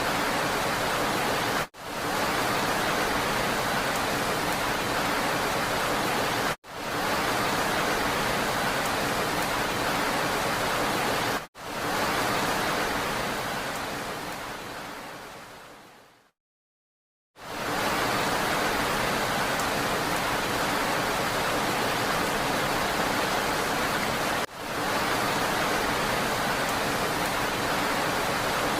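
Steady rain hiss with no distinct drops standing out, cut by brief dropouts at several points where the track is spliced. About halfway through it fades out over a few seconds to a moment of silence, then starts again at full level.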